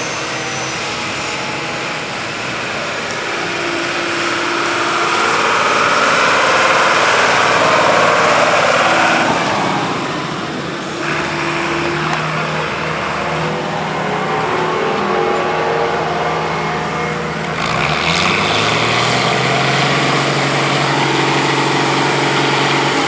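Fendt 312 tractor's diesel engine running as the tractor drives past. The engine swells in the middle and eases off about ten seconds in. A little before the end it goes up briefly in engine speed, then runs steadily.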